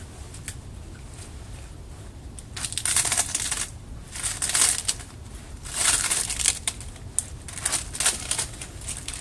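Tape being peeled and unwound from a cloth bag wrapped around a fire extinguisher's nozzle: several ripping, rustling bursts, each under a second, beginning a few seconds in.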